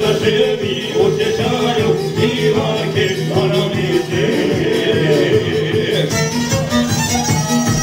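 Live amplified Balkan folk music: a violin leads over a plucked lute and keyboard with a steady beat, and men sing into microphones.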